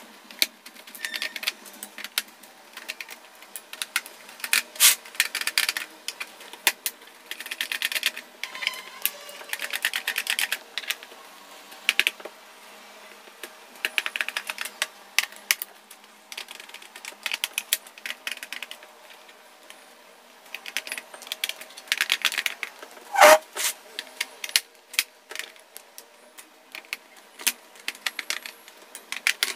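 A hand screwdriver turning screws out of the plastic underside of a Lenovo keyboard: irregular clusters of small clicks and scrapes, with one louder knock about three-quarters of the way through.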